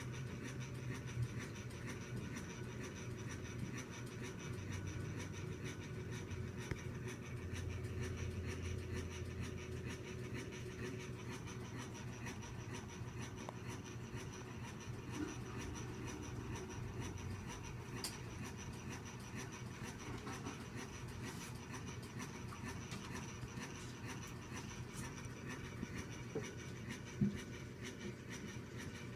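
Quiet background room tone: a steady low hum with faint scratchy rustling and a few small clicks.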